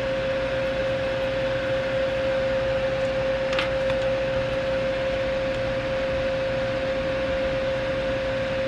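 Small electric fan running steadily for soldering work, a constant whirring with a steady hum, and a faint tick about three and a half seconds in.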